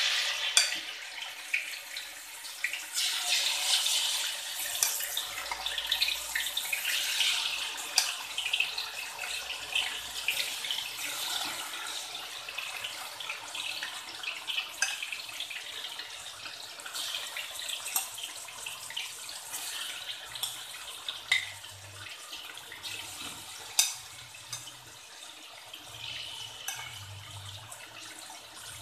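Flour-coated chicken pieces deep-frying in hot oil in a wok: a steady sizzle with scattered sharp pops, loudest over the first several seconds as pieces go in, then settling to a quieter sizzle.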